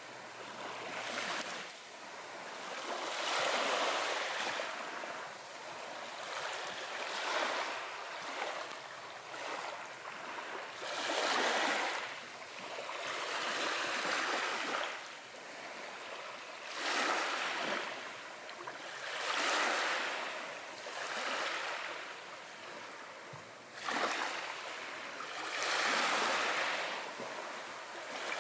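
Sea waves washing in one after another, each a rising and falling surge of hissing surf, about one every two to three seconds.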